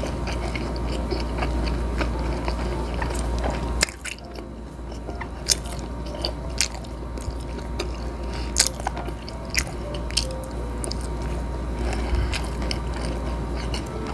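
Close-miked mouth sounds of a person chewing food, with short sharp clicks scattered irregularly throughout.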